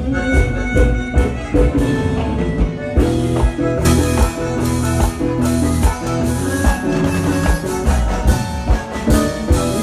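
Vallenato band playing live at a sound check, with a steady beat of drums and heavy bass under sustained pitched instruments.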